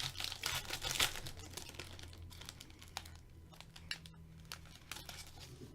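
A hockey card pack's wrapper crinkling and tearing as it is opened, then fewer, softer clicks of the cards being handled.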